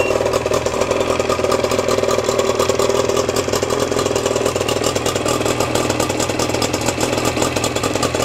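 Johnson 50 hp two-stroke outboard motor idling steadily just after starting. It is running out of the water with no cooling water supplied.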